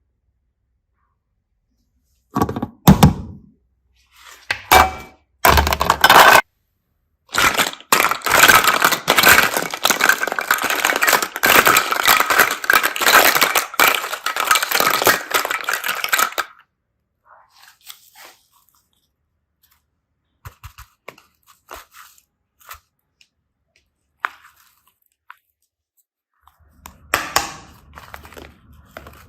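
Slime being squished and pulled apart by hand, crackling and popping. Three short bursts come first, then about nine seconds of continuous crackling, then a few faint ticks and one more burst near the end.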